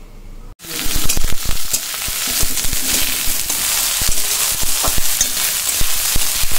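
Soaked soya chunks sizzling as they fry in a metal pan, starting suddenly about half a second in. A metal spatula scrapes and clicks against the pan as the chunks are stirred to brown them.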